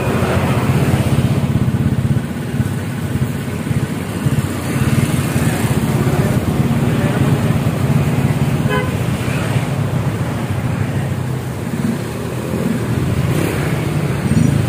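Honda Vario scooter's single-cylinder four-stroke engine running through a freshly fitted aftermarket standard-style muffler, idling with a few light throttle blips. The exhaust note is very smooth.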